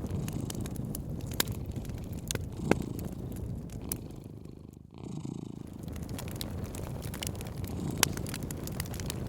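Cat purring steadily in a low rumble, with a wood fire crackling over it in scattered sharp pops. Around the middle the sound briefly fades down and swells back up.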